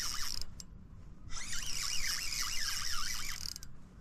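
Fishing reel whirring with a rhythmic, wavering squeal while a hooked squid is on the line. It sounds briefly at first, breaks off for about a second, then runs again for about two seconds.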